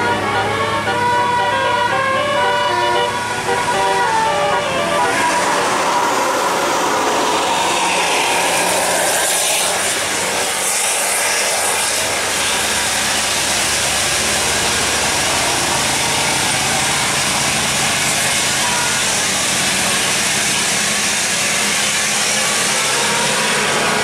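Tour bus 'telolet basuri' multi-tone musical horn playing a quick run of changing notes for about the first five seconds. After that the horn gives way to loud bus engines and road noise as the buses pass.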